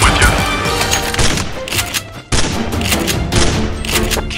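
Rapid bursts of dubbed gunfire sound effects over background music, with a brief break about two seconds in.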